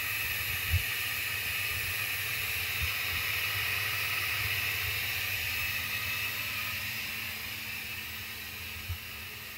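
Countertop electric blender running steadily as it blends juice, its level easing slightly in the last couple of seconds.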